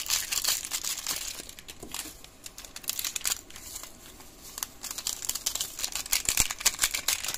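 Plastic seasoning sachets crinkling as they are handled, opened and shaken out over a pot of soup. The crinkling comes in two louder spells, one near the start and one from about five seconds in to near the end.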